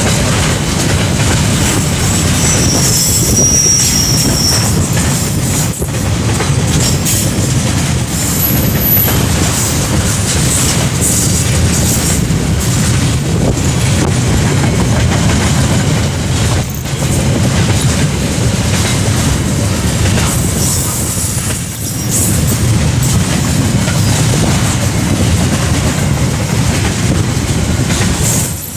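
Freight train's container wagons rolling past close by: a steady rumble and clatter of steel wheels on the rails, with a brief high wheel squeal about three seconds in and another short one near nine seconds.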